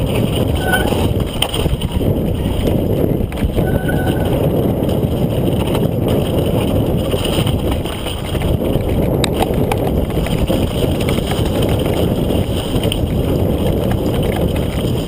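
Downhill mountain bike descending a wet, muddy trail, heard from a camera on the bike: a steady loud rumble of wind on the microphone and tyres on mud, with scattered clicks and knocks from the bike over the ground.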